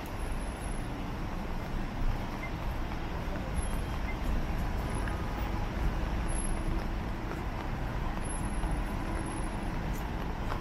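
Steady city traffic on a rain-wet street: cars and buses passing in a continuous rushing noise, with no single loud event standing out.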